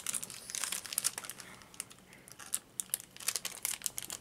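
Plastic candy bag crinkling in irregular crackles as someone handles it, working to get it open.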